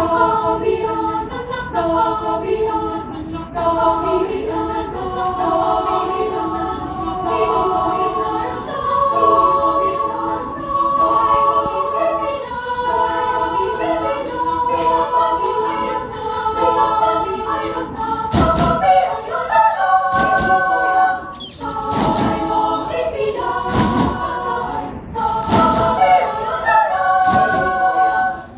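Children's choir singing a cappella in sustained chords of several parts. From about two-thirds of the way in, low thumps join in a steady beat, about one a second.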